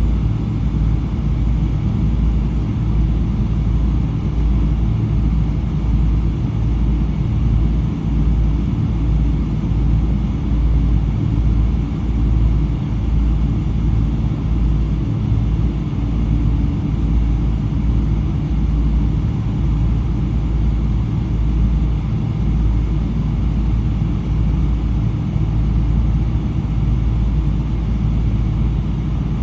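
Steady low rumble of a Boeing 777-300 with Rolls-Royce Trent 800 engines, heard inside the cabin from a window seat, with a few faint steady tones in the drone.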